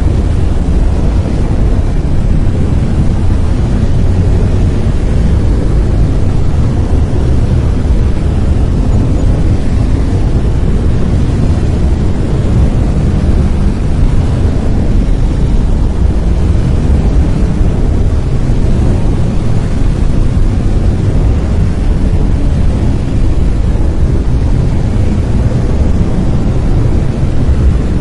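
Brown noise: a loud, steady, deep rumbling hiss, strongest in the low end and dull in the highs, with no changes.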